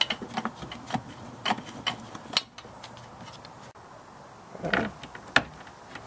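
Small bolts and plastic clips clicking and rattling as they are handled and fed into the holes of a plastic hitch cover. A quick run of sharp clicks fills the first two and a half seconds, then comes a brief scrape and a single click near the end.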